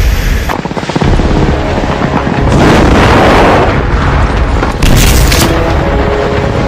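Dramatic war-style soundtrack: heavy booming rumble with a rapid rattle about a second in, a loud swell around three seconds and a sudden blast near five seconds, over faint held music tones.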